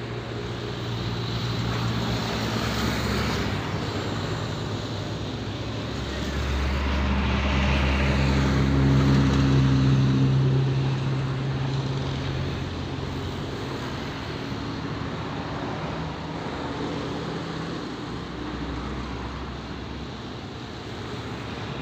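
Steady drone of a passing engine, swelling to its loudest around the middle and then slowly fading.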